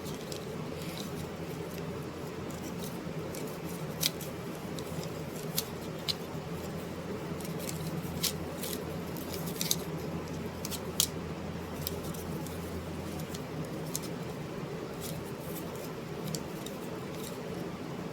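Steady low electrical or room hum, with several small sharp clicks scattered through it; the two loudest come about four seconds in and about eleven seconds in.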